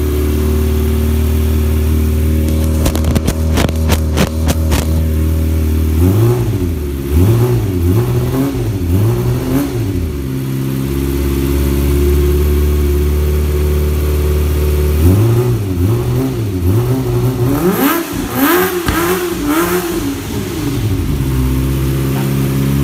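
Kawasaki ZX-25R's 250 cc inline-four running loud through a Yoshimura R-77 slip-on exhaust. It idles steadily, is blipped in quick rises and falls about six seconds in, idles again, then is revved harder in a second spell about fifteen seconds in with one high sweep before settling back to idle.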